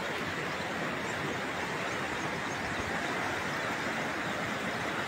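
A muddy river in flood rushing past: a steady, even rushing noise that neither rises nor falls.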